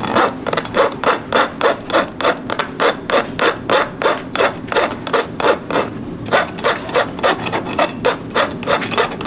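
Farrier's hoof rasp filing a racehorse's hoof in steady back-and-forth strokes, about three a second, with a short pause about six seconds in.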